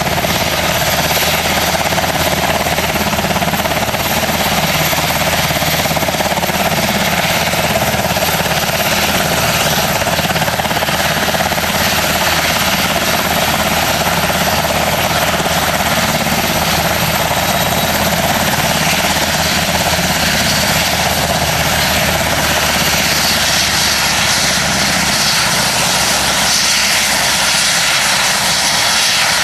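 Sikorsky UH-60 Black Hawk's twin T700 turboshaft engines and main rotor running on the ground, loud and steady, with a thin high turbine whine that drops slightly in pitch about three quarters of the way through.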